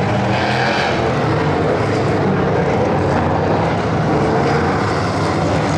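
Engines of several prototype race cars running together as the pack passes through a corner sequence, a steady overlapping drone with no single car standing out.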